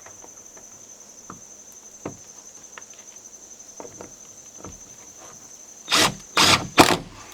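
Steady high insect trill with a few light knocks, then about six seconds in a power drill runs in three short bursts, driving a screw through a door hinge.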